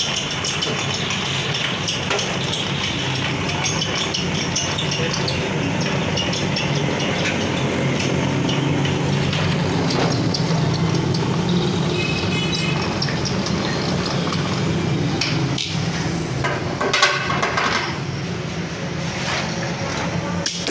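Scattered metallic clinks and knocks as the jaws of a metal lathe's three-jaw chuck are adjusted by hand, with a louder knock about seventeen seconds in. A steady low machine hum runs underneath.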